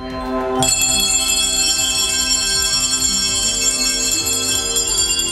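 A handbell choir playing music: a chord of bells struck about half a second in, many bell tones ringing and sustaining together, with lower notes changing under them.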